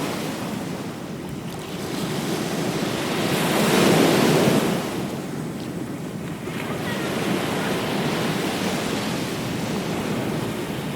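Ocean surf on a beach: a steady wash of waves, with one wave swelling and breaking loudest about four seconds in before easing back to the continuous wash.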